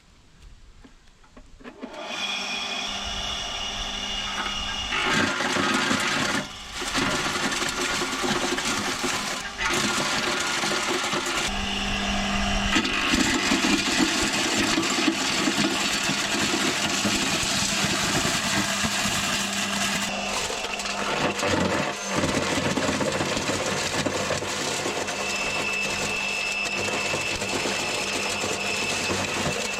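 Rover Muncher garden mulcher running after its blade was refitted, starting up about two seconds in, with a few brief dips in loudness along the way.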